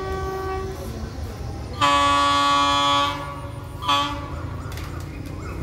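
Horn of an arriving train: a held note that ends within the first second, then a louder long blast of about a second, then a short toot.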